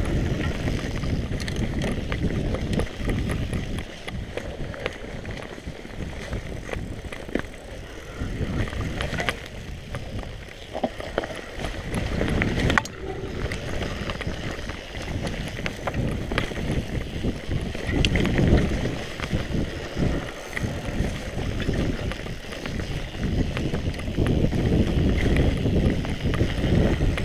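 Mountain bike descending a dirt trail: steady rumble of tyres and wind on the microphone, with frequent rattles and knocks from the bike over rough ground.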